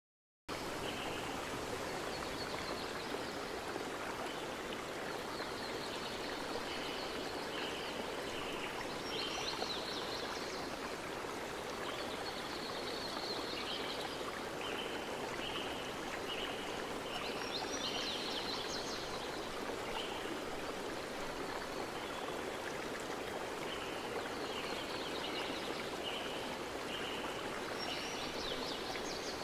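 Nature-sounds background track: steady running water with rows of short chirping calls and, about every nine seconds, a flurry of higher chirps. It starts abruptly about half a second in.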